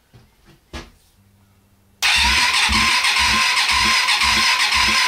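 Electric starter cranking a Hyosung GV250 V-twin motorcycle engine, starting suddenly about two seconds in after a click, with a steady starter whine and slow, even compression pulses about two a second; it does not fire. It is turning over slowly, which the owner puts down to a possibly weak battery.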